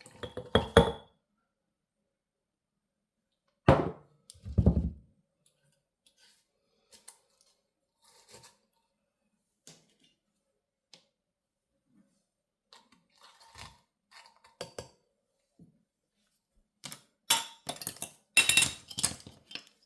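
Glass mason jar and kitchenware being handled: a couple of solid knocks at the start and again about four seconds in, a few faint taps, then a quick run of clinks and clatter near the end.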